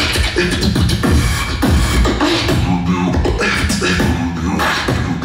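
Solo beatboxing into a cupped handheld microphone: deep bass hits mixed with sharp percussive clicks and short pitched vocal tones in a continuous rhythm.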